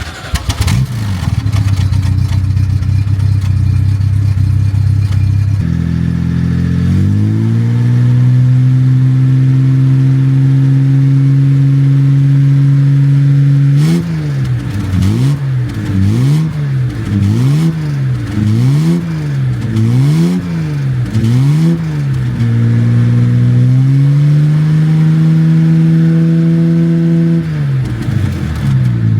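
Car engine running: it idles, settles to a higher steady idle, then is blipped up and down about seven times in quick succession before holding a steady fast idle again and dropping back near the end.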